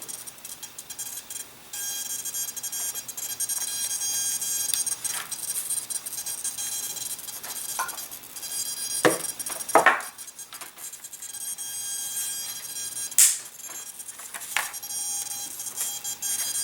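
Steady high-pitched electronic whine from the model's powered-up servos holding position. It starts about two seconds in and is broken by a few sharp clicks and knocks from handling the parts.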